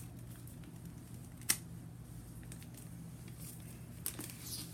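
A folded origami paper being handled: one sharp click about a second and a half in, then a few faint ticks near the end, over a low steady hum.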